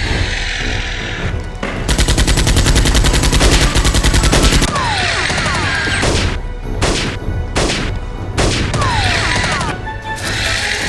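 A burst of rapid automatic gunfire lasting about three seconds, then several separate single shots, over background music.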